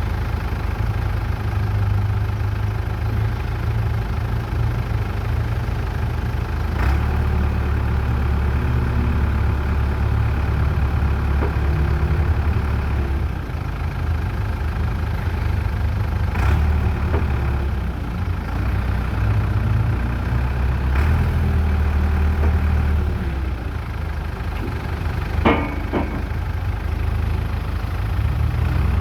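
New Holland LB75 backhoe's diesel engine running steadily, its low note stepping up and down several times as the load changes. A few sharp knocks come through, the loudest late on.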